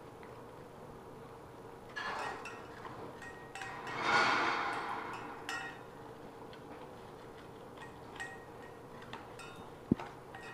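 Two dogs licking and gnawing frozen dog ice cream in stainless steel bowls, their tongues and teeth clinking and ticking irregularly against the metal. There is a louder scraping stretch about four seconds in and a sharp clink near the end.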